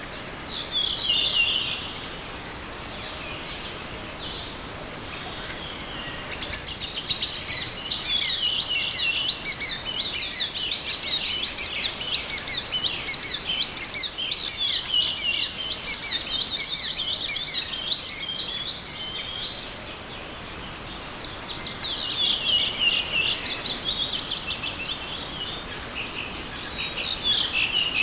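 Songbirds singing in a long run of rapid twittering notes, with a short burst about a second in and a brief lull about two-thirds of the way through, over the steady rush of a small forest river.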